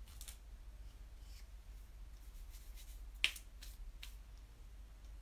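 Faint clicks and taps of small objects being handled, with one sharper click about three seconds in, over a low steady hum.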